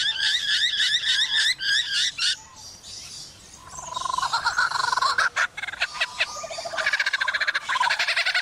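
Male superb lyrebird singing in full tail-fanned display: a fast run of repeated rising whistled notes, then after a short pause a lower, rapidly pulsed trilling series broken by a few sharp clicks about halfway through.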